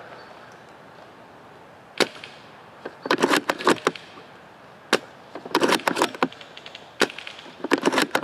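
Airsoft gunfire: three single sharp cracks, about 2, 5 and 7 seconds in, and between them three short bursts of rapid clicking.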